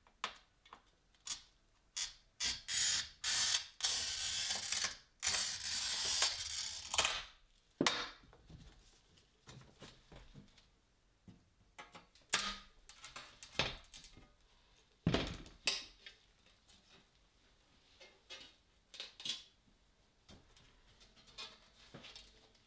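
Pieces of stained glass clinking and knocking as they are picked up and set down on a work table, with a longer stretch of rustling from about three to seven seconds in.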